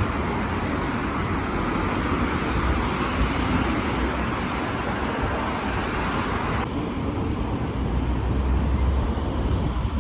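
Steady road traffic noise with a low rumble. The higher hiss drops away suddenly about two-thirds of the way through.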